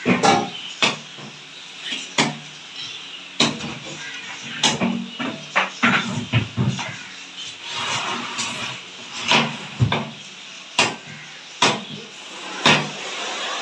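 A heavy curved fish-chopping knife striking down through a trevally onto a wooden log chopping block: about a dozen sharp chops, irregularly spaced roughly a second apart, with a short lull partway through.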